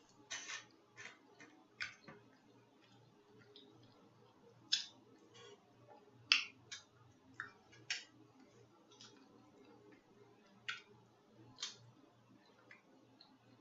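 Close-miked mouth smacking while chewing food: a dozen or more short, sharp smacks and clicks at an uneven pace, the loudest a little past the middle.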